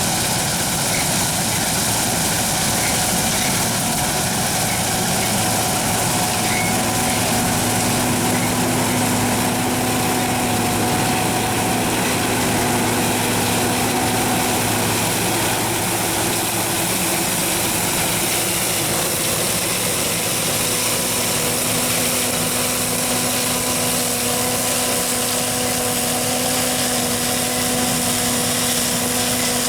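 John Deere 9400 combine running steadily: a constant machinery drone with a steady whine over it.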